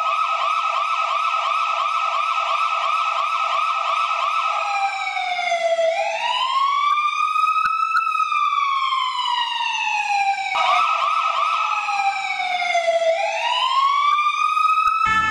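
Electronic ambulance siren, alternating between a fast warble of about four cycles a second and slow wailing sweeps that rise and fall over a couple of seconds each. It switches from warble to wail about five seconds in, back to warble briefly near eleven seconds, then wails again.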